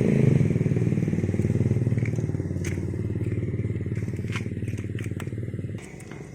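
A small engine running loud and rough close by, starting abruptly and cutting off sharply near the end, with scattered light clicks over it.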